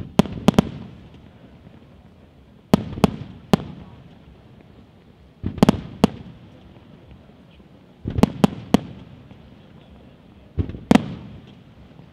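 Aerial firework shells bursting in the sky: five clusters of two to four sharp bangs, roughly one cluster every two and a half seconds, each bang trailed by a short rumbling echo.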